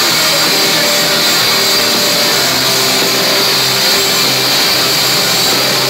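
Live rock band playing loud through the arena PA, heard from the crowd as a dense, steady wall of sound with held notes. The sound is overloaded and smeared on a phone microphone.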